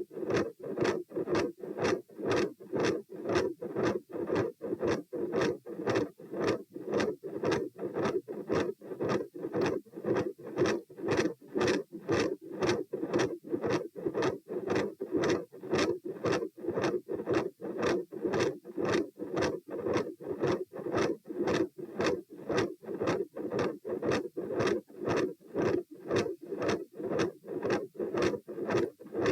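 Human heartbeat auscultated at the pulmonic area: a steady, regular run of lub-dub beats with a mid-systolic murmur and a very loud second heart sound (S2).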